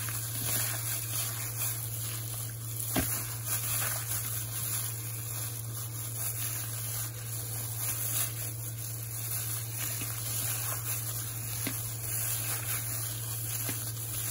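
A plastic-gloved hand squishing and kneading wet minced beef mixed with egg, onion and water-soaked breadcrumbs in a plastic bowl, a soft continual wet squelching. A steady low hum sits underneath, with one sharper click about three seconds in.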